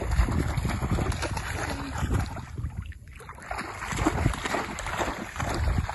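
Splashing in shallow seawater as a small dog runs through it, with wind rumbling on the microphone. The splashing eases off briefly about halfway, then picks up again.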